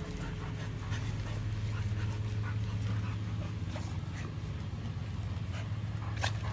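Several pit bulls whining eagerly for the raw chicken being carried among them, over a steady low hum, with a sharp knock about six seconds in.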